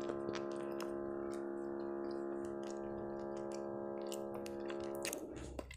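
A woman hums a long, steady closed-mouth "mmm" while chewing strudel, holding one pitch until it stops about five seconds in. Small wet clicks of chewing run through it.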